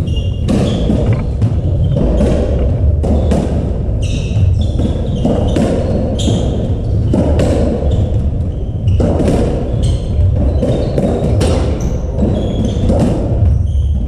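Racketball rally on a squash court: the ball thudding off the walls and floor and racket strikes, many sharp knocks at an irregular pace, echoing in the enclosed court.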